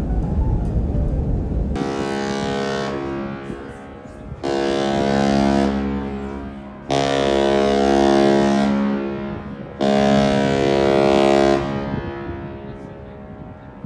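Queen Mary 2's ship's whistle sounding a series of deep, long blasts of about two seconds each, one already sounding and three more starting sharply about four, seven and ten seconds in.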